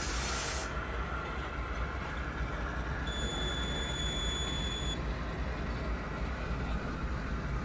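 HO-scale model freight train rolling along the layout's track with a steady rumble. A thin, high-pitched squeal sounds for about two seconds midway.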